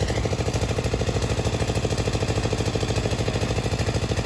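An engine running steadily, with a fast, even pulsing beat.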